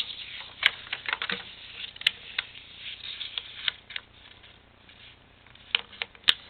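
Sheet of paper rustling and crackling as it is folded and creased flat by hand on a tabletop, with a few sharp clicks.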